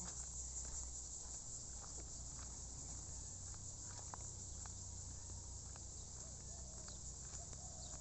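A steady, high-pitched insect chorus, with faint footsteps on a dirt path and a low rumble underneath.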